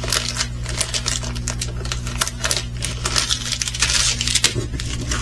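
Diamond painting kit packaging being handled: plastic bags and small hard pieces clicking and crinkling in a rapid, irregular run, over a steady low hum.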